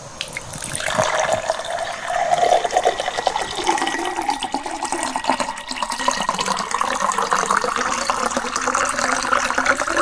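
Water pouring steadily into a glass, the note rising slowly as it fills.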